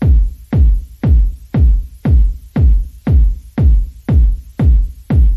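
Background electronic music with a heavy kick-drum beat, about two beats a second.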